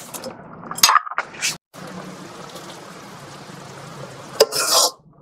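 A metal ladle knocking and scraping in a metal wok of curry, with a few sharp clinks, then a steady low hiss. Near the end, a sharp click and a short clatter as a serving bowl is handled against the wok.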